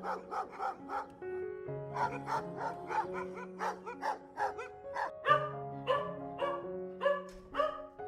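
A dog barking in quick, repeated short barks, about three a second, with a brief pause early on and louder barks in the second half. Background music with sustained chords plays underneath.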